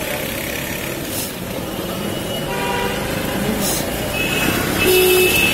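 Street traffic noise with vehicle horns. One horn sounds about halfway through, and shorter toots come near the end.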